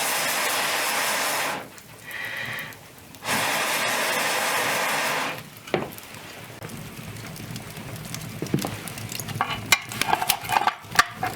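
Two loud bursts of hiss-like noise, about two seconds each, then quieter scraping with a run of light clicks and knocks near the end.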